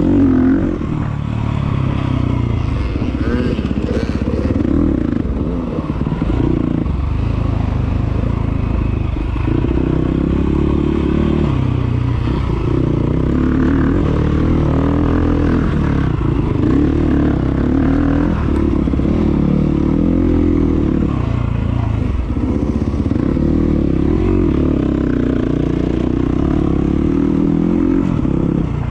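Enduro motorcycle engine being ridden hard off-road, its revs rising and falling again and again with the throttle.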